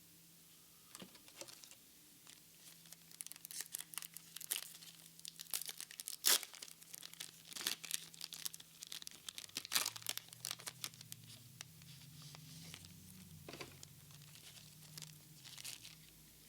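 Foil Pokémon card booster pack wrapper being torn open and crinkled by gloved hands: a run of sharp crackles and rustles, the loudest about six seconds in.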